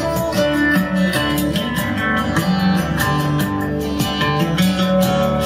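Guitar-led song played at full volume through a Tronsmart Force 2 30-watt Bluetooth speaker, picked up by the room microphone with no processing, with a steady beat.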